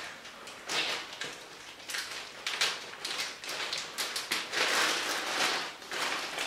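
Plastic zip-lock bag crinkling and rustling in a run of short bursts as it is pulled open by hand.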